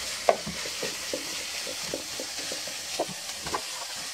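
Pork belly sizzling in hot oil in an electric pan, a steady hiss with a spatula tapping and scraping against the pan two or three times a second.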